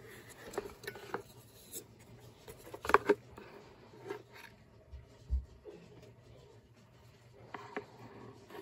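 Short clicks, knocks and scrapes of a shop vac's plastic housing, gasket and metal motor plate being handled and pulled apart by hand, loudest about three seconds in, with a low thump a couple of seconds later.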